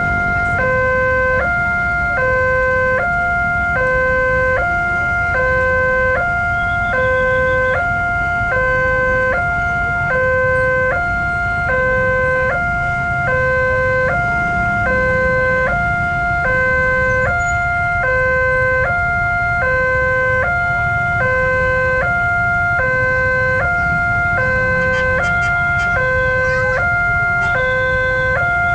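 Indonesian railway level-crossing alarm sounding its electronic two-tone warning, a higher and a lower tone alternating steadily about once a second, with the barrier down for an approaching train. Road traffic and motorbike engines run underneath.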